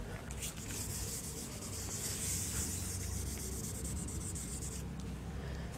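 Whiteboard being wiped with a handheld duster: a rubbing hiss of quick back-and-forth strokes, starting about half a second in and stopping shortly before the end.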